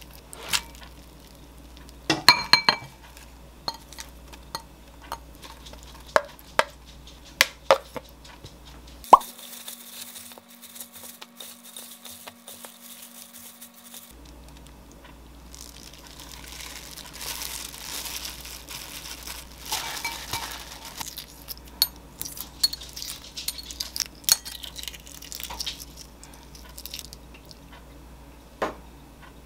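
Kitchen food-prep sounds: a spoon clinking and tapping in a glass mixing bowl as sauce is mixed, a series of sharp clinks, then a plastic-gloved hand tossing noodles and lettuce in the bowl, a wet rustling that runs for several seconds, and one sharp tap near the end.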